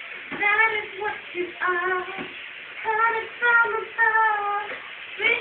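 A woman singing alone in a high voice, in short phrases of held notes with brief breaks between them.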